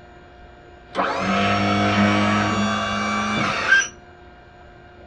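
Battery-powered Hyster pallet truck's electric hydraulic lift pump motor running under a load of about 1000 lb as it raises the forks, here fed from a 24 V bench DC supply. It is a steady motor whine that starts suddenly about a second in, rises briefly in pitch as it spins up, and cuts off sharply nearly three seconds later.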